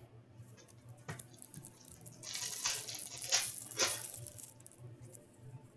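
A foil 2014-15 Upper Deck Series 1 hockey card pack being handled and torn open: a light tap about a second in, then crinkling with a few sharp rips between about two and four seconds in.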